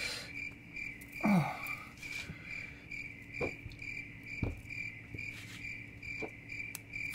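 A cricket chirping steadily, about three chirps a second, with a few light clicks and taps as wire is twisted by hand to snap it off. One louder, brief falling sound comes about a second in.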